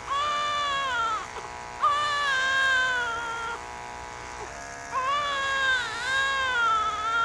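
A newborn baby crying in three long wails, each falling in pitch at its end, with short breaths between. Under them runs a steady electric buzz.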